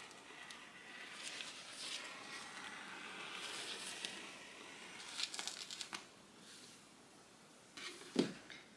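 Rotary cutter blade rolling through a double layer of microfiber fabric on a cutting mat: a faint, steady scratchy noise for a few seconds, followed by a few light clicks.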